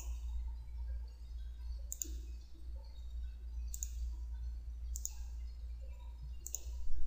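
Computer mouse clicking: about five single clicks spaced a second or two apart, over a steady low hum.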